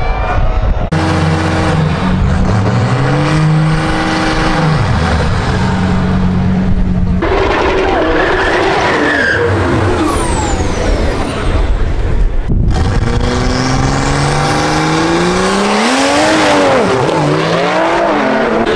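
Drag-racing cars launching down the strip, engines revving hard and climbing in pitch, dropping back at each gear shift before climbing again. The sound changes abruptly three times where separate runs are spliced together.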